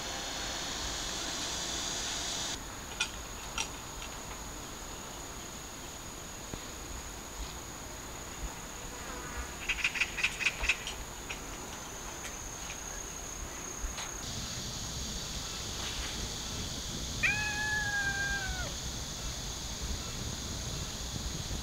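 A kitten meows once late on, a single high call of about a second and a half that drops in pitch at its end. Earlier comes a quick run of small clicks as the kitten eats from a metal bowl, with steady high insect chirring throughout.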